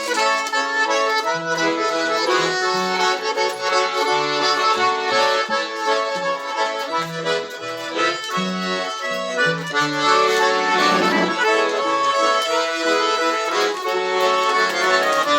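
Accordions playing a forró tune: a continuous melody of held and shifting chords with a moving bass line beneath.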